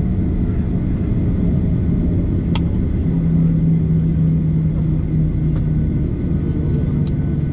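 Steady low rumble and hum inside a Boeing 737 passenger cabin on the ground, with the hum growing a little stronger about three seconds in and a few faint clicks.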